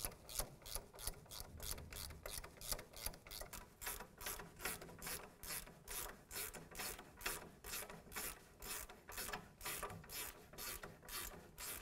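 Hand ratchet with an 18 mm socket worked rapidly back and forth, a steady raspy clicking of about four strokes a second, snugging down the brake caliper bracket bolts.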